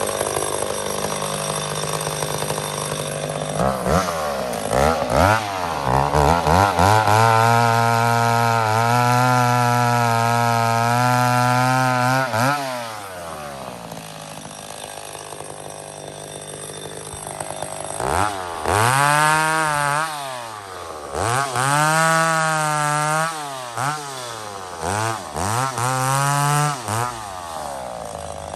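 McCulloch 850 two-stroke chainsaw revved up from idle and held at high revs for several seconds, then dropping back to idle. It is then revved again in a series of throttle blips before settling back down near the end.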